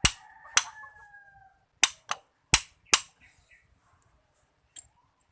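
Hammer striking metal: about six sharp, uneven blows in the first three seconds and a faint tap near the end, the first blows leaving a short metallic ring.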